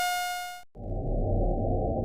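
Astronomical sonifications played back: a steady buzzy tone with many overtones fades out in the first part, then after a brief gap a dull, low rumbling noise takes over.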